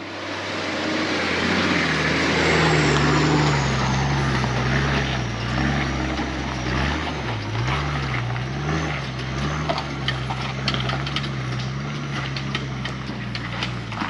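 Four-wheel drive's engine running as it drives, its revs wavering up and down, over a rush of tyre noise, with many small clicks of grit and stones in the second half.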